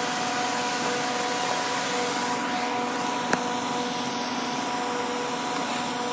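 Snow cannon making artificial snow: a steady spraying hiss with a constant machine hum under it, and one short click about three seconds in.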